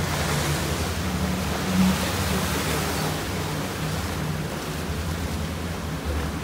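A motorboat's engine running with a steady low hum under the rush of churning river water along the hull, briefly louder about two seconds in.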